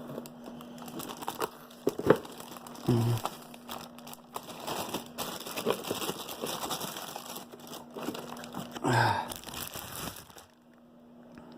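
Packaging crinkling and rustling with scattered knocks and taps as a car subwoofer is unpacked and handled. The rustling stops near the end.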